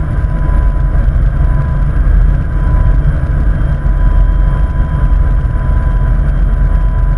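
Bell 412 helicopter in flight, heard from inside the cockpit: a loud, steady rotor and turbine rumble with a thin, steady whine on top.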